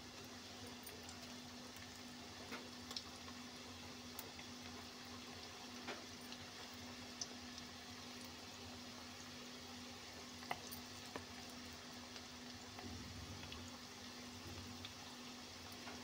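Onion pakoras deep-frying in a kadhai of hot oil: a steady sizzling hiss with scattered crackling pops as fresh batter goes in.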